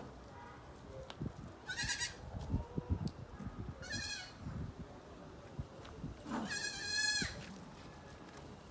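Goats bleating: two short high bleats and then a longer one near the end, which is the loudest. Soft low thuds are heard in the first few seconds.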